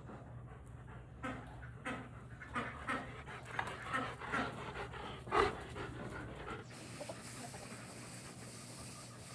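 Dog panting in quick, breathy strokes about twice a second, stopping about two-thirds of the way through.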